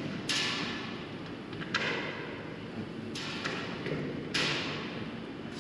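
Four sharp metal knocks and scrapes about every second and a half, from work on the steel floor and wall panels of an empty corrugated-steel grain bin, each one trailing off in the bin's echo.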